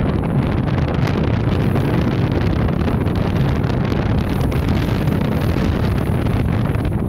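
Steady rush of wind buffeting the microphone on a RIB under way, mixed with the noise of the boat and the water going past.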